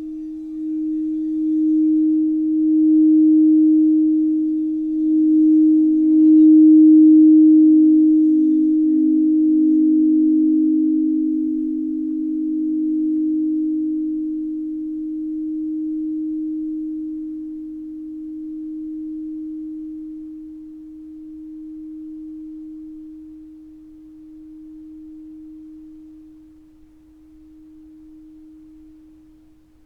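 Singing bowl ringing with one low, pure tone that swells over the first several seconds and then slowly fades, wavering as it goes. A second, slightly lower tone beats against it and dies out about two-thirds of the way through.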